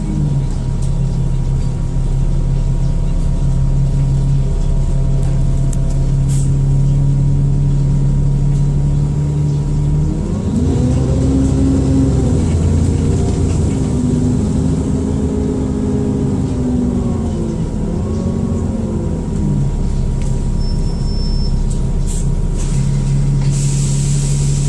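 Dennis Trident II / Enviro400 double-decker bus's diesel engine running steadily, then rising and falling in pitch several times as the bus pulls and changes gear before settling again, with a faint steady whine running above it. A rush of hiss starts near the end.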